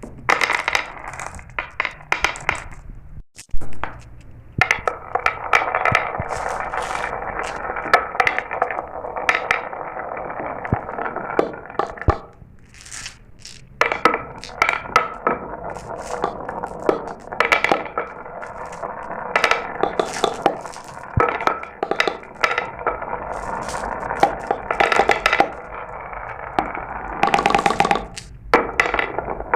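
Glass marbles rolling down a marble run: a steady rolling rattle over the track, dotted with many sharp clicks and clinks as marbles drop and knock against each other, with brief lulls a few times.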